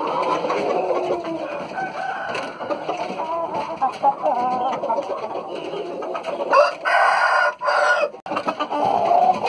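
Thai game rooster crowing once, loudly, about a second long, near two-thirds of the way through. Before it, chickens make a run of short wavering clucks and calls.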